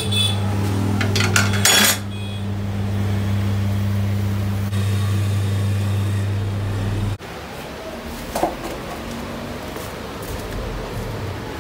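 Tyre-changer machine's electric motor turning the turntable with a steady hum, while a steel tyre lever clanks against the wheel rim as a worn motorcycle tyre is pried off. The motor stops abruptly about seven seconds in, leaving only a few light knocks.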